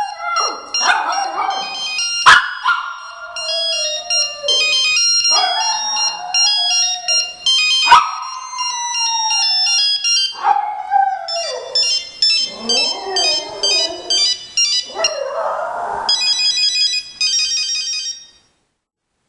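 Volpino Italiano dog howling and whining along to a beeping polyphonic mobile phone ringtone, in a string of drawn-out howls that mostly fall in pitch. There are two sharp clicks, and both dog and tune stop shortly before the end.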